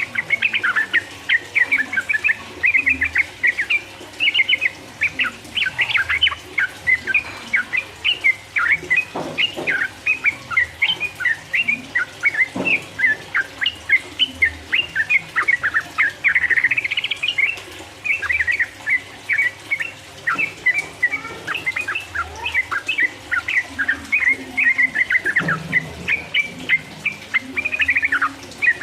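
Yellow-vented bulbul (trucukan) singing in a fast, unbroken run of chirping notes, the rapid 'ropel' song used to excite rival birds.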